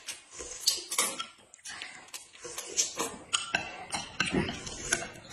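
Close-up eating sounds: noodles slurped up with chopsticks, and a spoon clicking against a small glass bowl in short irregular knocks.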